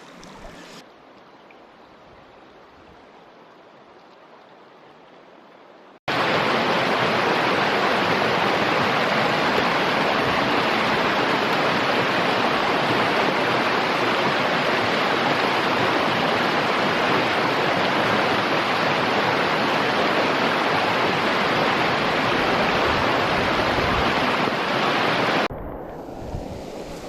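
Stream water rushing, a loud steady hiss that cuts in suddenly about six seconds in after a faint quiet stretch, and drops away near the end.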